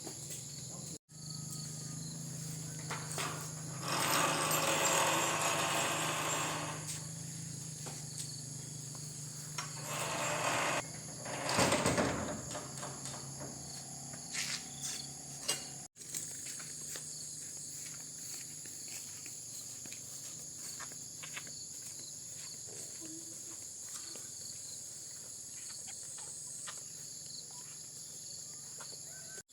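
Insects chirring steadily at a high pitch, with a few louder stretches of noise from about four to seven seconds in and again near the middle.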